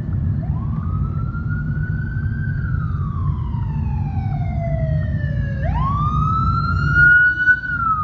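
Police siren wailing in slow sweeps: the pitch climbs, falls slowly for about three seconds, climbs again quickly a little past halfway, and starts falling near the end. A steady low rumble of engines and road noise runs underneath.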